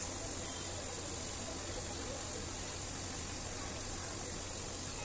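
Momos deep-frying in hot oil: a steady, even sizzle.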